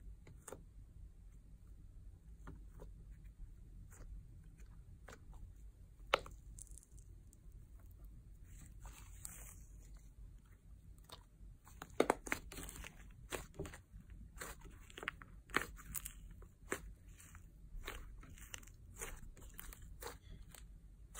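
Fluffy blue slime being squeezed and kneaded by hand on a tabletop, giving quiet scattered crackles and small pops as air pockets in it burst. The crackles are sparse at first and come thicker and louder about halfway through.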